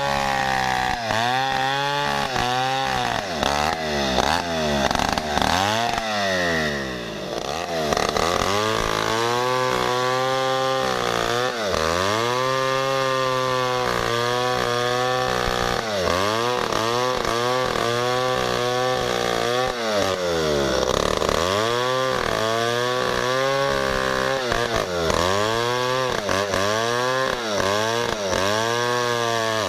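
MS070 two-stroke chainsaw crosscutting a felled log at full throttle, its engine pitch sagging as the chain bites into the wood and rising again every few seconds.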